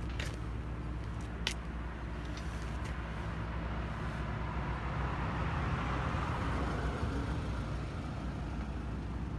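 A road vehicle passes: its noise swells to a peak about six seconds in, then fades, over a steady low traffic rumble. A few sharp clicks come in the first two seconds.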